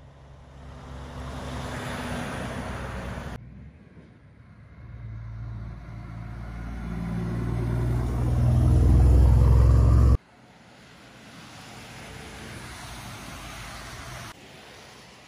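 Heavy diesel semi-trailer trucks passing by the roadside, in short clips that cut abruptly from one to the next. The loudest is a cab-over prime mover whose engine builds to a loud low drone about nine seconds in, then cuts off. Near the end, traffic swishes past on a wet road.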